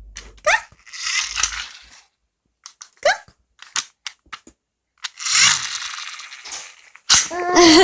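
A voice making breathy hissing noises and short rising squeaks, with a few clicks. About seven seconds in it becomes a drawn-out tone whose pitch wavers up and down.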